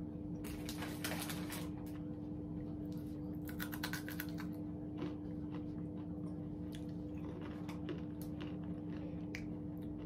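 Crunching and chewing on a crab-flavoured savoury snack, in crackly clusters about a second in and again around four seconds in, over a steady low hum.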